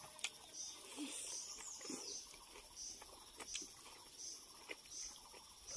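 Quiet chewing, lip-smacking and small mouth clicks of people eating rice and pork by hand, heard close on a clip-on microphone. Faint chirps repeat steadily in the background.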